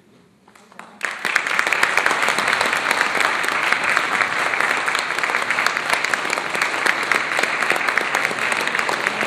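Audience applauding. The clapping breaks out about a second in and carries on steadily.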